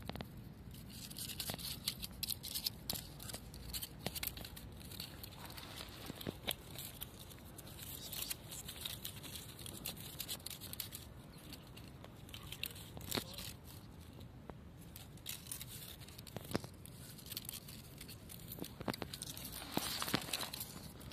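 Irregular light scratching and rustling: a calico kitten's claws scraping a thin tree trunk and pawing through dry grass and leaves.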